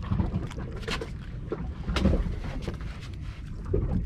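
Wind rumbling on the microphone, with scattered knocks and clicks.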